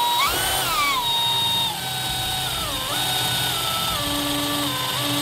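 Cordless drill with a 3/16-inch bit running continuously as it bores a hole through the bed liner and front wall of a pickup truck bed. The motor whine wavers in pitch as the load changes: it rises soon after the start, falls back, and dips briefly near the three-second mark.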